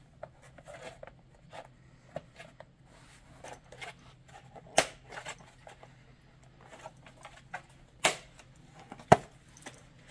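Plastic tabs of a 2003 Nissan Pathfinder instrument cluster's clear lens clicking into their slots on the housing as it is pressed on: light handling clicks and rustles, with three sharp snaps at about five, eight and nine seconds in.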